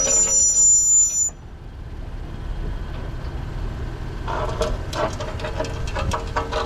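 Rear disc brake noise on a 2024 Acura MDX while driving: a high steady squeal that cuts off about a second in, then low road rumble, and from about four seconds in an irregular scraping, grinding rattle, which the owner suspects is a stone caught in the brake.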